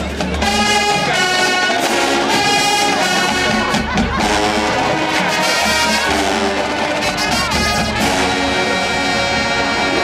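HBCU marching band playing: the brass section (trumpets, trombones and sousaphones) carries loud held chords that change every second or so over the drum line.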